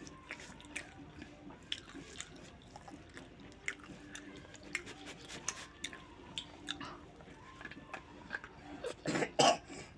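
Close-up chewing: faint, scattered wet mouth clicks of someone eating a mouthful of food, with a few louder sounds about nine seconds in.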